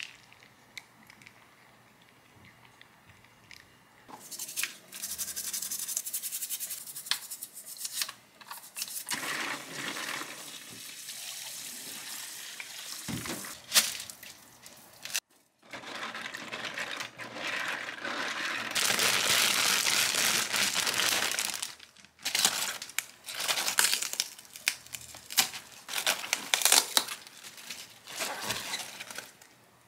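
Water running and splashing in a stainless steel sink as vegetables are rinsed in a bowl. About two-thirds of the way through it gives way to the crisp crackling and tearing of napa cabbage leaves being peeled off the head.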